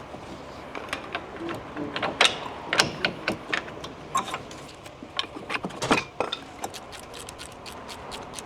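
Hand tools and steel brake parts clinking and clicking as a disc brake caliper and its worn pads are taken off: irregular sharp metal clicks, with a few louder knocks about two, three and six seconds in.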